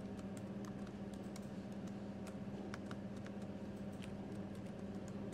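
Computer keyboard being typed on: light, irregular key clicks as a word is entered, over a steady low hum.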